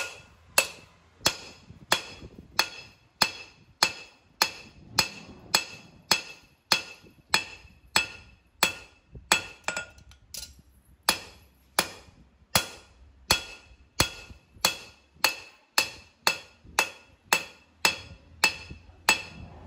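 Hand hammer striking steel on an anvil in a steady rhythm, about one and a half blows a second, each blow ringing with a metallic tone, with a short break about ten seconds in: forging a knife blade from twisted steel bar.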